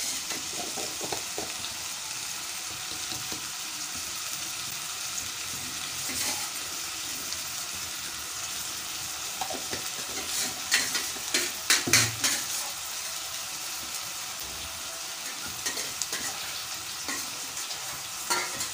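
Meat, onion and tomato sizzling as they fry in oil in a pot: a steady hiss, with a cluster of sharp clicks and knocks about ten to thirteen seconds in.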